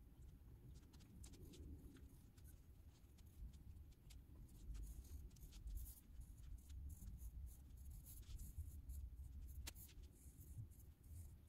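Faint scratching of a coloured pencil on paper: short, irregular shading strokes, busier from about halfway through, over a low steady hum.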